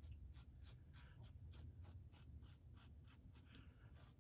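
Faint, quick short strokes of a Mühle Rocca safety razor scraping stubble through shave lather, several a second.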